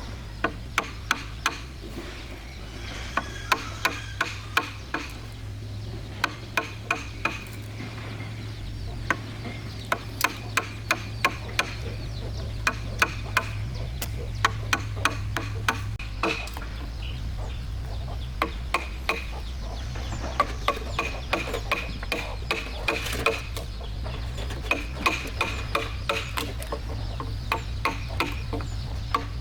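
Repeated sharp hammer blows, mostly in quick runs of several strikes with short pauses between, over a steady low hum. Chickens cluck in the background.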